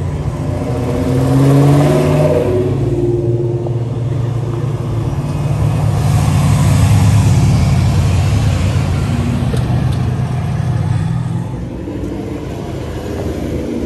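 Ford Mustangs driving past one after another, their engines and exhausts loud and rumbling. One revs up with a rising note about one to two seconds in, and a second car passes loudly a few seconds later.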